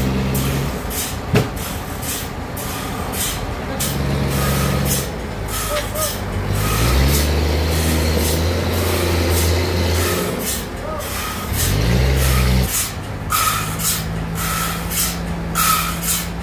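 A large engine running, its pitch stepping up and down twice, with repeated short hisses. Near the end a short beep repeats about once a second.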